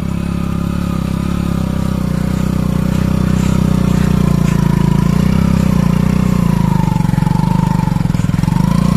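Commuter motorcycle engine held at steady high revs while its rear wheel spins in loose sand: the bike is stuck and digging in. The pitch wavers slightly near the end.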